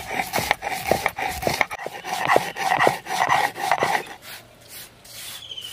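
Stone grinder (nora) rubbed back and forth over dry-roasted whole spices on a flat stone slab (shil), giving rhythmic rasping, crunching strokes that stop about four seconds in.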